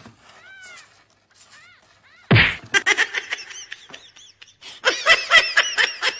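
Young kittens mewing in short, high, rising-and-falling calls. About two seconds in, a person breaks into loud laughter, rapid and pulsing, which is heaviest in the second half.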